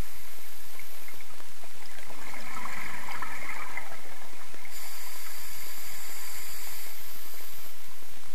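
Steady underwater hiss and water noise picked up through a camera's underwater housing, with a louder rushing patch about two to four seconds in.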